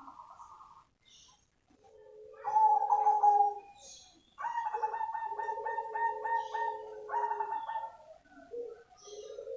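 Zebra dove (perkutut cemani) cooing in phrases: a low note stepping up to a higher one, then a longer phrase of rapid staccato coos at about six a second, with another phrase beginning near the end.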